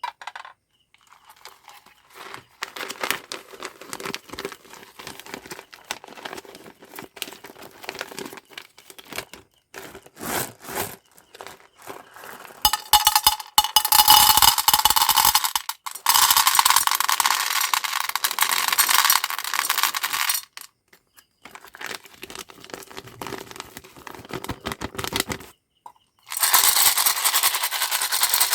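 Plastic candy packaging being opened and handled by hand: crinkling and tearing, in spells that get louder about halfway through and again near the end.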